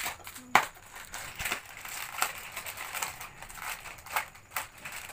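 Lay's potato chips being crunched in the mouth while eating, mixed with the crinkle of the foil chip packets, in a string of short crackles; the sharpest and loudest comes about half a second in.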